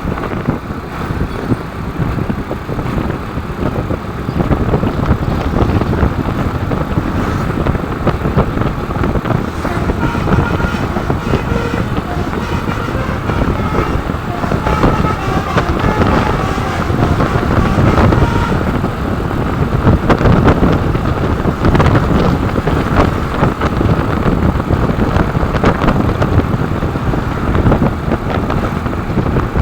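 Loud road-traffic noise from passing vehicles, with a bus's telolet horn sounding its multi-tone tune partway through.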